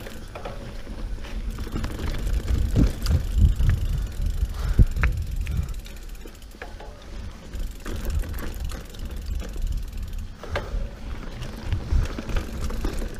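Mountain bike ridden over a dirt singletrack: a steady rumble from the tyres and the bike, with sharp clicks and knocks as the bike rattles over bumps, loudest a few seconds in.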